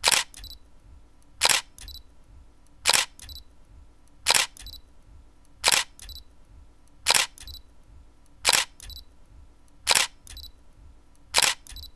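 Camera shutter clicks, nine times at an even pace of about one every 1.4 seconds. Each is a sharp double click, a loud snap followed by a fainter second click.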